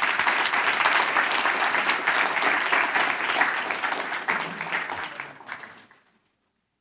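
Audience applauding, many hands clapping together, thinning out and stopping about six seconds in.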